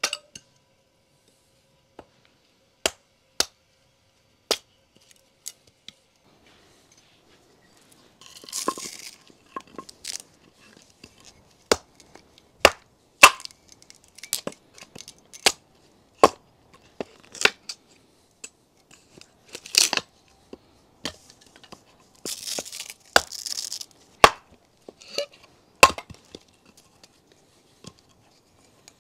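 Hatchet splitting firewood into kindling on a wooden stump: a run of irregular sharp chops, some with the crackling tear of the wood splitting apart.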